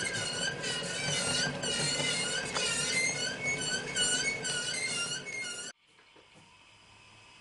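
H0 model overhead wire squeaking where a model electric locomotive's pantograph rubs along it, on the model's first run: a repeated squeal of about two short chirps a second, each dipping and rising in pitch, that cuts off about three-quarters of the way through.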